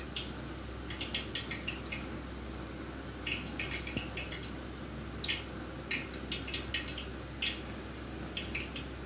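Hands pressing and smoothing a sticky mashed sago-and-potato mixture onto the back of an oil-greased steel bowl: irregular clusters of soft, wet clicking sounds over a low steady hum.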